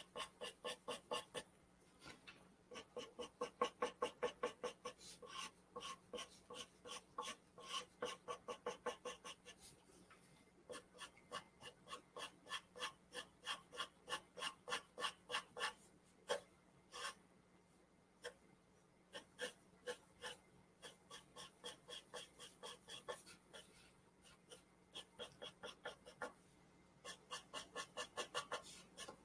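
Pencil on paper: quick back-and-forth shading strokes, about five a second, in runs broken by short pauses.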